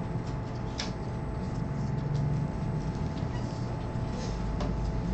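Marker writing on paper, with a few faint scratchy ticks from the strokes, over a steady low hum.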